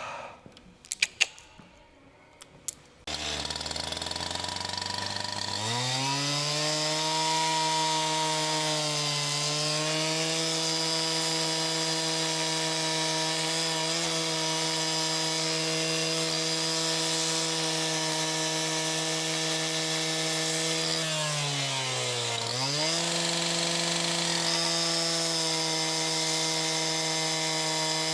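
A few sharp knocks, then an electric chop saw starts about three seconds in and spins up to a steady whine. Its pitch sags twice and recovers as the blade bogs down cutting through a rubber truck bed mat.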